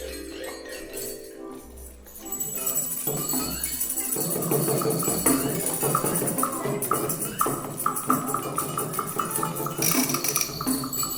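Music with jingling percussion: after quieter held tones, a quick, steady beat of jingles comes in about two seconds in and carries on.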